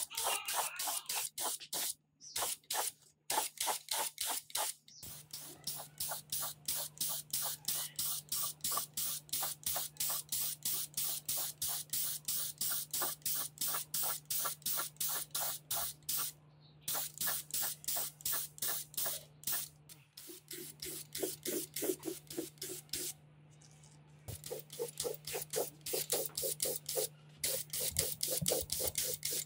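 Gravity-feed paint spray gun hissing in rapid, evenly repeated bursts, about five a second, broken by a few short pauses, over a steady low hum.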